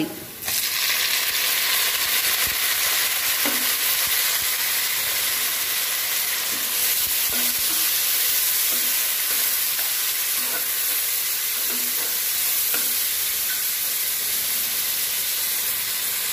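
Chopped tomatoes going into hot oil with frying shallots and garlic: the sizzle jumps up about half a second in and then runs on steadily, with light spatula knocks and scrapes against the pan as they are stirred.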